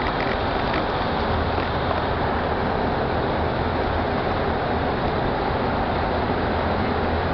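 Ford Model A's four-cylinder engine running steadily at road speed, mixed with tyre and traffic noise that echoes off the walls of a road tunnel: an even drone with a low hum underneath.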